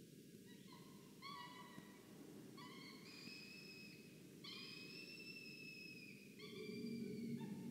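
Peregrine falcon chicks wailing to beg for food: about five drawn-out, whining calls, each a second or more long and rising slightly at the start. A low rumble swells under them near the end.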